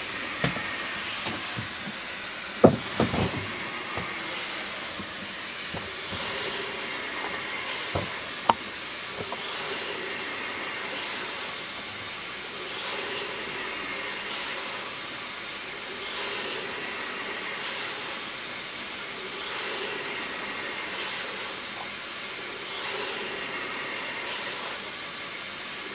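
Home-built model beam engine running on air blown in by a vacuum cleaner: a steady motor hiss, with a whoosh of air that swells and fades about every second and a half as the engine works through its strokes. A few sharp knocks, the loudest about three seconds in and another near eight and a half seconds.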